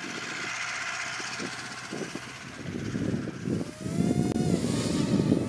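Small quadcopter's electric motors and propellers spinning up, a whine rising in pitch about three and a half seconds in. Underneath, a louder low rumble of wind on the microphone.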